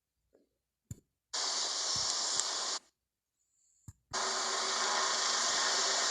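Steady rushing noise from a video playing on a computer, which cuts in and out abruptly as the video is skipped forward. There is dead silence between the two stretches, with a faint click before each one starts.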